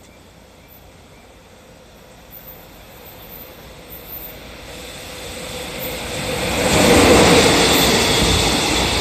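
EF66 electric locomotive hauling a container freight train through the station without stopping. The noise builds steadily as it approaches, is loudest about seven seconds in as the locomotive goes by, then carries on as the rumble of the container wagons rolling past.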